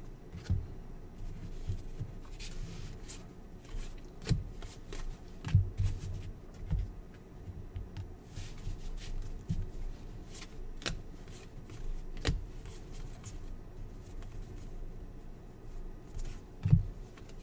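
A stack of basketball trading cards handled by hand, cards slid off and flicked through one at a time: quiet, irregular rustling with light taps and a few soft thumps.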